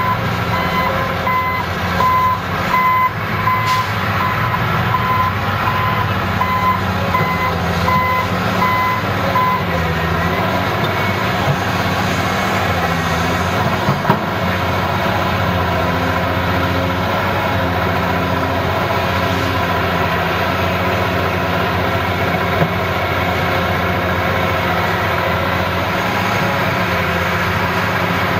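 Heavy diesel engine of a Cat 375 excavator running steadily under load while it digs and loads. A reversing alarm beeps over it in a steady on-off pattern and stops about ten seconds in.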